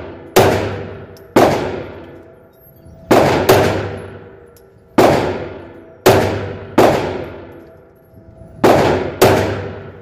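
Glock 17 Gen 5 MOS 9mm pistol firing nine shots in an indoor range, some single and some in quick pairs, each crack followed by a long echoing ring-out off the range walls. The last shot empties the magazine and leaves the slide locked back.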